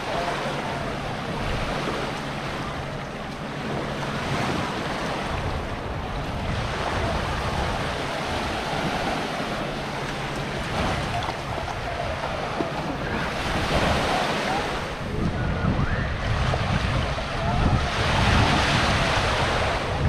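Small waves breaking and washing up on a sandy beach, with wind buffeting the microphone. The surf comes in surges and is loudest near the end.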